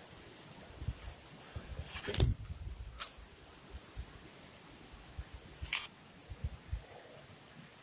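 Handling noise from a phone being moved around while filming: a few sharp clicks and knocks, loudest about two seconds in and again near six seconds, with soft low bumps between them.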